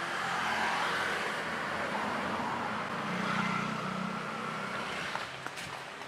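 Street traffic: cars and motorbikes passing in a steady wash of road noise, with a low engine hum swelling around the middle. A few light ticks near the end.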